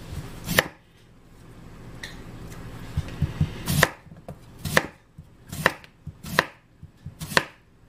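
Large kitchen knife slicing a raw potato into rounds on a wooden cutting board, each cut ending in a sharp knock on the board. One cut comes just after the start, then after a short lull the cuts come about once a second.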